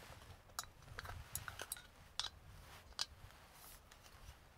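Small metal clicks and scrapes as a folding backpacking stove has its arms opened and is screwed onto a gas canister, about six sharp clicks in the first three seconds and a short rustle near the end.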